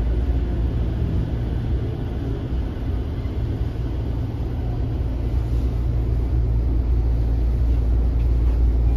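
Tokyo Metro 05 series electric train heard from inside the passenger car: a steady low rumble of wheels on rail and running gear as the train slows for its station stop.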